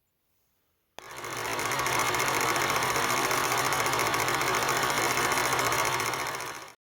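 Champion portable generator running steadily with an even mechanical hum, starting abruptly about a second in and cutting off near the end.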